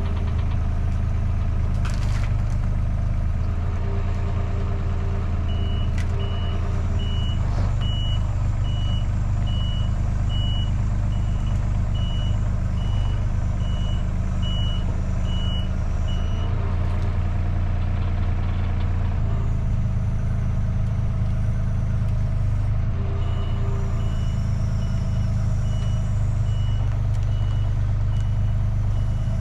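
Engine of a heavy machine running steadily, its reversing alarm beeping about once every 0.8 s for around ten seconds, stopping, then starting again near the end.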